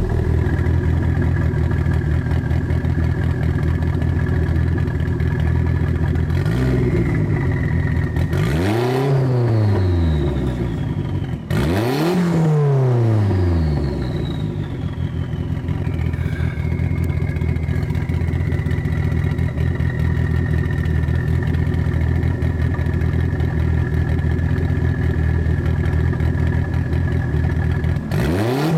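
Toyota MR2 Turbo's 3S-GTE turbocharged four-cylinder idling steadily through an aftermarket exhaust, blipped several times: a small rev about six seconds in, two sharper revs around nine and twelve seconds, and another near the end. Each sharper blip is followed by a high whistle falling away.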